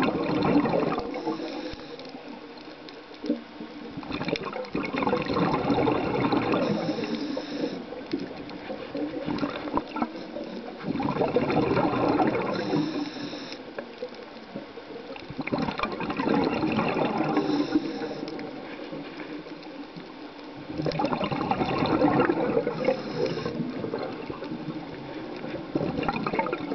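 A scuba diver's exhaled bubbles rushing and crackling out of the regulator in regular breaths, one burst about every five seconds, with quieter inhalations between.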